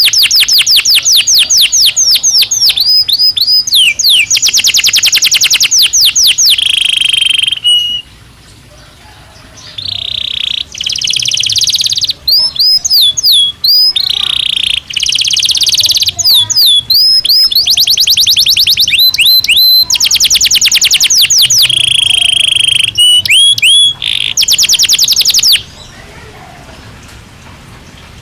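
Belgian canary singing: long, rapid trills of repeated high notes alternating with short falling whistled sweeps. There is a brief pause about eight seconds in, and the song stops near the end.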